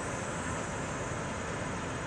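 Steady outdoor background noise: an even rumble and hiss with no distinct knocks or clicks.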